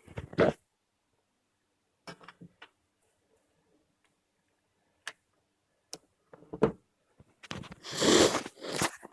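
Handling noises while a charger cable is plugged into a phone: scattered small clicks and taps, then a louder rustle lasting about a second near the end.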